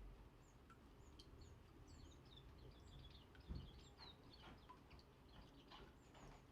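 Small songbirds calling faintly, a quick run of short high chirps and little falling notes, with a soft low thump about three and a half seconds in.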